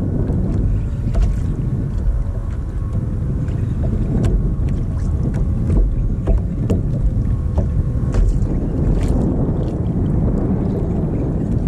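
Wind buffeting the microphone in a steady low rumble, with water lapping against a kayak hull and scattered light clicks.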